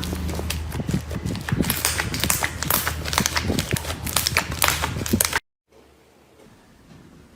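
Slime being handled and pressed, with dense, irregular crackling and popping clicks. The sound cuts off abruptly about five and a half seconds in, leaving only faint, soft sounds.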